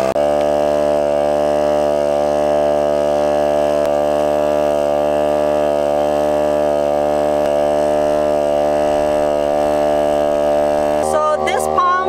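Portable electric air compressor running steadily while inflating a van tire through a coiled hose: a loud, even buzzing drone with a slight waver. It cuts off about eleven seconds in.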